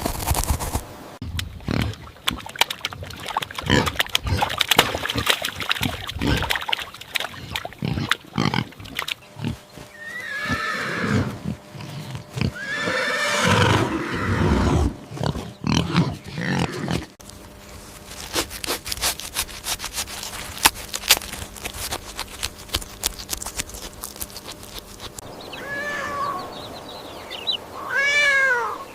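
A horse whinnying twice, in two long calls about ten and thirteen seconds in, amid many knocks and clicks. After a sudden change partway through, short repeated animal calls start near the end.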